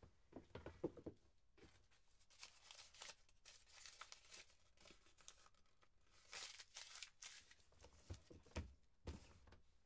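Faint rustling and crinkling of paper handled by hand in a small room, with scattered soft ticks and a few light knocks near the end.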